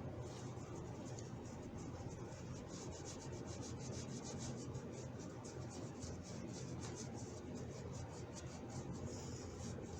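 Quick back-and-forth rubbing on a small metal hand tool, several even, scratchy strokes a second.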